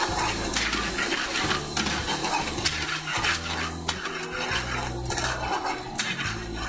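Metal ladle clinking and scraping in a metal frying pan as chopped chicken is stir-fried over a high gas flame, in repeated irregular knocks over a steady sizzling hiss.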